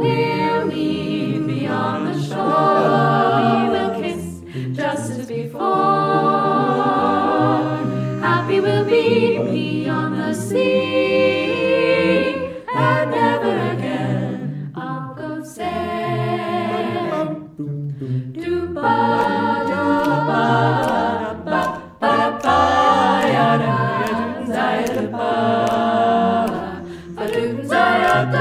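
Mixed-voice a cappella group of men and women singing in layered harmony, phrase after phrase, with no instruments.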